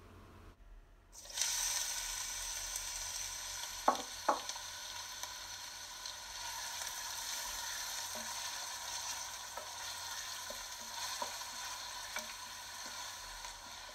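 Chopped onions hitting hot oil in a stainless steel pot start to sizzle suddenly about a second in, then keep frying steadily. Two sharp knocks come a few seconds in, and a wooden spoon stirs the onions near the end.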